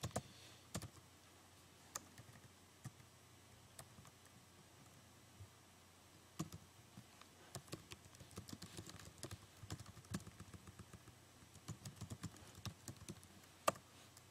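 Faint typing on a computer keyboard: scattered key clicks at first, then quicker runs of keystrokes in the second half, with one louder key click near the end.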